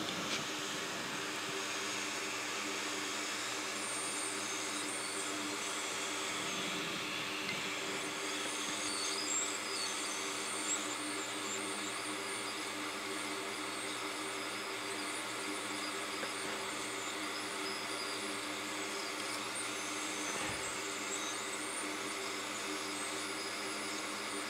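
Hot air rework station blowing a steady hiss with a faint fan hum, turned up to more heat than usual while it heats a burnt chip on a circuit board that is not yet loosening.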